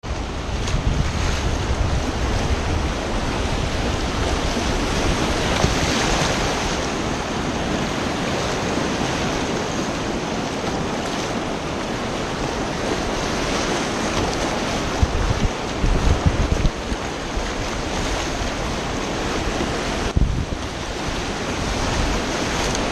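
Whitewater rapids rushing loudly around a kayak, mixed with wind buffeting the camera microphone. A few low thumps come about two-thirds of the way through.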